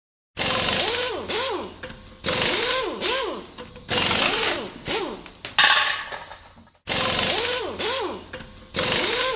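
Intro sound effects: a loud noisy hit with swooping pitch sweeps, repeated about every two seconds, with a brief cut-out about seven seconds in.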